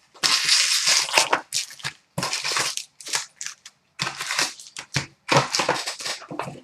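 Plastic and foil wrapping crinkling and tearing in short, irregular bursts as a sealed box or pack of trading cards is ripped open.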